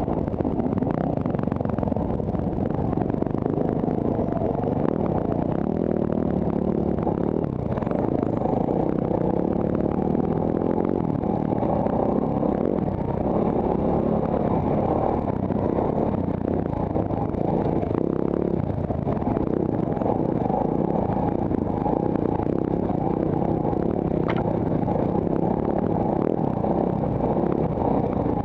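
Dirt bike engine running on the move along a rough trail, its revs rising and falling.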